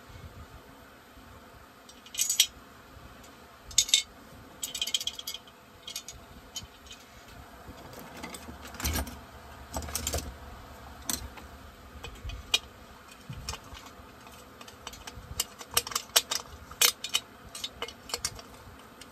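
Hand tools and small metal parts clinking and rattling during chainsaw reassembly. The clinks come in scattered, short jingles, with a dull knock around the middle and a quick run of clicks near the end.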